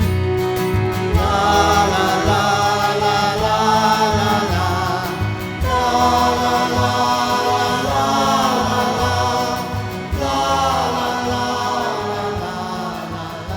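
Song's outro: wordless, chant-like voices sing three long phrases over the accompaniment, and the music begins to fade near the end.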